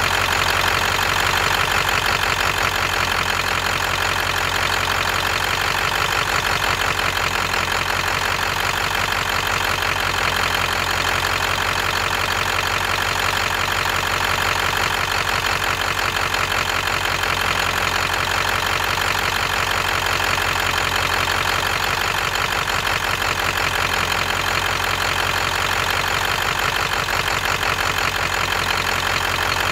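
Engine idling steadily with a rolling misfire, uneven single missed firing strokes that the owner suspects come from cylinder number 8.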